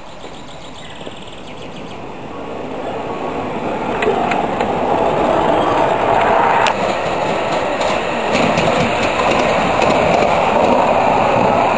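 Miniature ride-on passenger train running on its track, the rumble of its wheels on the rails growing louder over the first few seconds as it gathers speed, with a few sharp clicks along the way.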